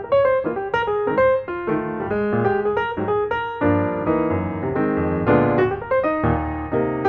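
Background music: a piano melody with chords and a steady pace.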